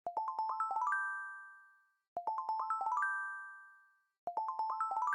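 Short chime jingle: a quick run of about eight bright bell-like notes climbing in pitch, each phrase ringing out and fading, played three times about two seconds apart.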